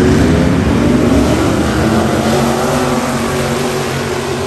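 Race car engines running hard on the track, their pitch shifting as they accelerate and getting slightly fainter toward the end.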